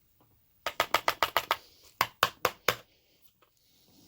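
Padlock body being rapped against a hard surface to shake a stuck pin out of its chamber: a quick run of about seven sharp knocks, a short pause, then four more.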